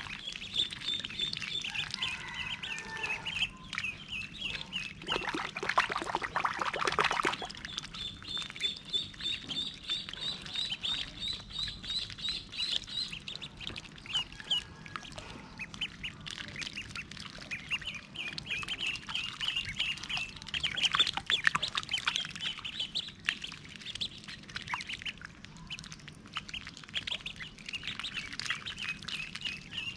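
Ducklings peeping in quick runs of short, high-pitched notes while bathing in shallow water, with splashing from their dipping and shaking, heaviest about five to seven seconds in.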